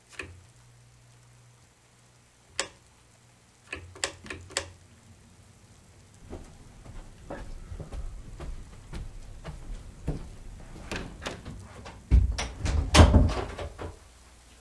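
A wall light switch clicks, then scattered clicks and knocks follow. After about six seconds they become a busier run of knocks and thumps, loudest in a cluster of heavy thumps near the end.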